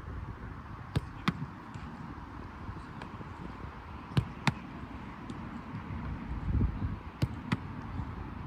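A football being struck and stopped in a goalkeeping drill: three pairs of sharp thuds, each pair about a third of a second apart, coming about every three seconds over a steady low rumble.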